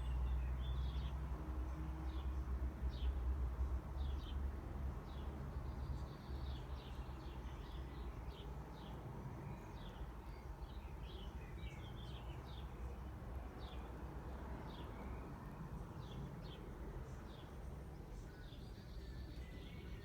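Small birds chirping outdoors: many short, quick chirps, scattered and repeated, over a low rumble that eases off after about six seconds.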